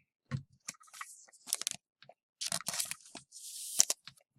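Trading cards and a foil pack wrapper being handled: a string of small clicks and crinkles, with a longer crinkling rustle about three seconds in.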